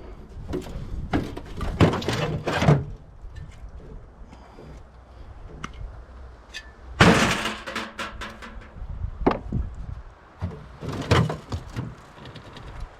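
Scrap metal being handled: a string of irregular clanks and bangs, the loudest about seven seconds in, over a low rumble.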